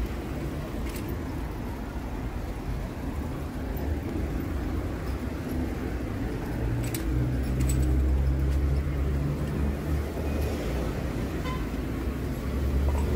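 City street traffic: a steady rumble of car and van engines and tyres. One vehicle's engine grows louder and passes about seven to ten seconds in.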